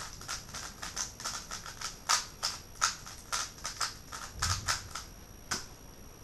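A WeiLong GTS v2 M speedcube being turned fast by hand: rapid, irregular plastic clicks and clacks of the layers snapping round, several a second, stopping about five and a half seconds in.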